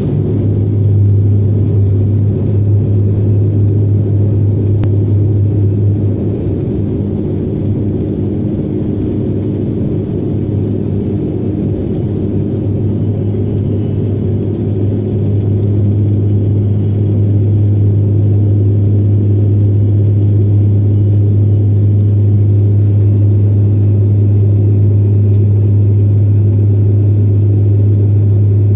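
Passenger airliner's engines at takeoff power heard from inside the cabin, through the takeoff roll and climb-out: a loud, steady drone with a constant deep hum.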